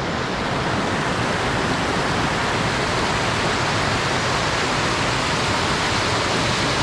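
Steady rush of a fast mountain stream, swelling a little in the first second and then holding even.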